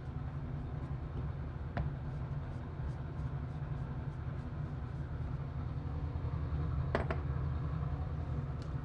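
Kitchen ventilation fan running with a steady low hum, with a light click about two seconds in and a quick double knock about seven seconds in.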